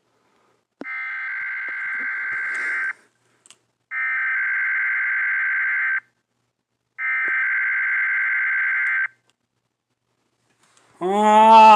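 Emergency Alert System header tones: three bursts of digital data tones, each about two seconds long and about a second apart. Near the end a louder tone with several stacked pitches starts.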